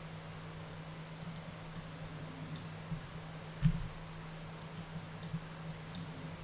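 Faint clicks of a computer mouse and keyboard, scattered irregularly over a steady low hum, with one louder thump about three and a half seconds in.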